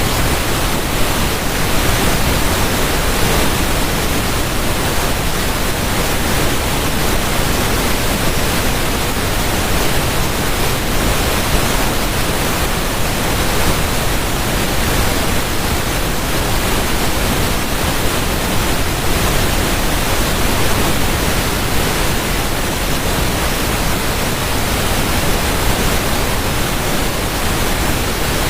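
Steady rushing water, an even, unbroken hiss with no splashes or changes.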